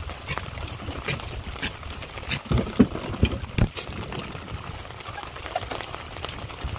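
Steady rumble of wind and light drizzle around an open boat, with a handful of sharp knocks around the middle.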